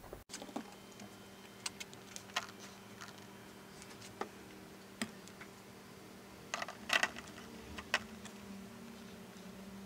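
Chunks of rendered beeswax being handled and set down on a plastic digital kitchen scale: scattered clicks and knocks, the loudest a cluster about seven seconds in, over a steady low hum.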